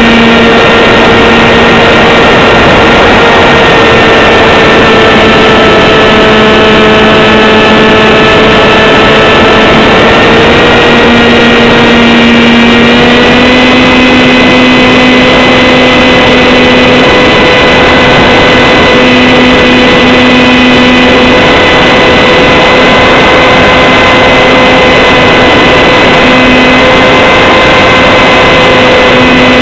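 Electric motor and propeller of a Z84 flying wing running steadily with a whining tone over heavy rushing wind noise, very loud. The pitch steps up a little about ten seconds in and again about thirteen seconds in as the throttle changes.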